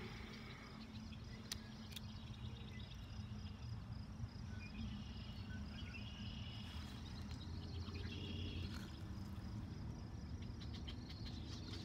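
Insects trilling steadily in the background, with a few short higher calls partway through and a couple of faint clicks early on, over a low steady rumble.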